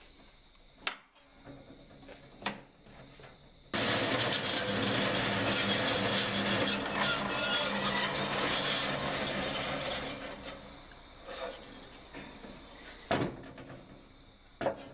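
Horizontal metal-cutting bandsaw starting suddenly about four seconds in and cutting through a block of aluminum stock, a steady loud run that dies away about ten seconds in. A few sharp knocks come before the saw starts and near the end.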